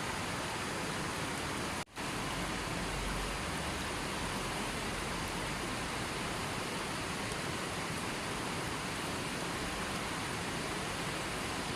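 River water flowing in a steady, even rush. The sound drops out for a split second about two seconds in.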